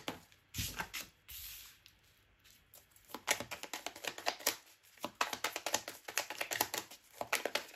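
A deck of oracle cards shuffled by hand: a rapid run of light card flicks and clicks that thins out for a couple of seconds about a second in, then picks up again.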